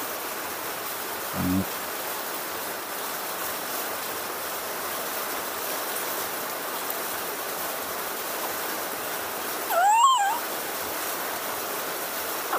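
Steady heavy rain falling through the trees, with a baby macaque giving one short high call that rises and falls about ten seconds in.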